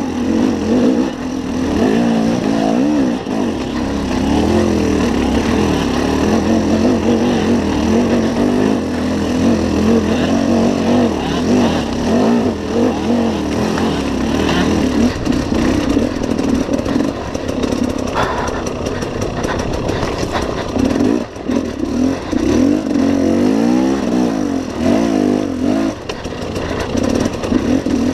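KTM enduro motorcycle engine heard close up, revving up and down again and again, its pitch rising and falling every second or two as the throttle is worked over rough rocky ground.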